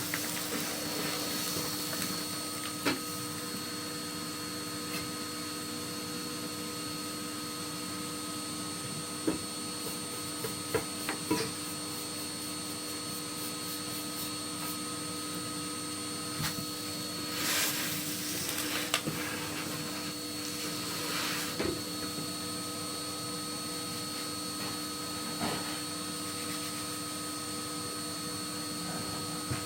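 Chimney sweep's vacuum running steadily with an even motor whine, with a few sharp knocks and short scraping noises over it, the loudest about two-thirds of the way through.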